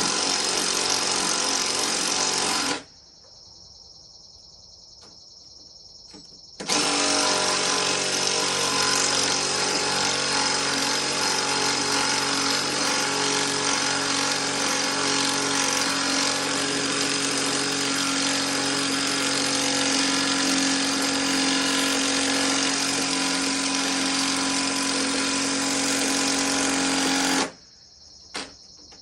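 Brushed cordless impact driver running under load, hammering steadily: a short run of about three seconds, a pause of about four seconds, then a long continuous run of about twenty seconds that stops with a click near the end. Crickets chirp steadily in the gaps.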